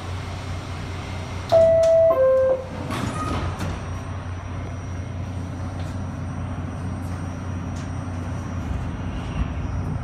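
R68A subway car's door chime: two descending tones about a second and a half in, followed by clicks and knocks as the doors close. A steady low hum of the car runs underneath as the train begins to pull out of the station.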